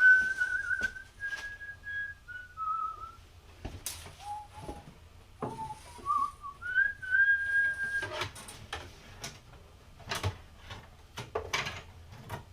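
A person whistling a short tune in two phrases of held notes with slides between them, followed from about eight seconds in by a run of light clicks and knocks.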